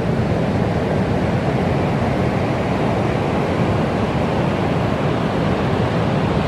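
Large ocean waves breaking, a steady rushing wash of surf and whitewater.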